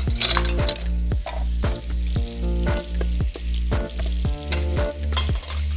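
Steak sizzling as it fries in a pan and is stirred, under background music with a steady beat of about two strokes a second.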